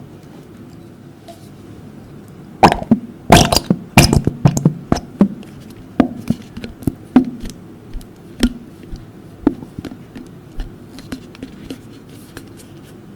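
Slime being mixed: a run of sticky clicks and wet pops, dense for a few seconds, then thinning out to scattered pops.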